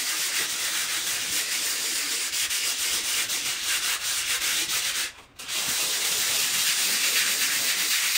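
A painted interior wall being hand-sanded: a steady, scratchy hiss of abrasive rubbing across the surface, with a short pause a little after five seconds in as the stroke changes, in preparation for repainting.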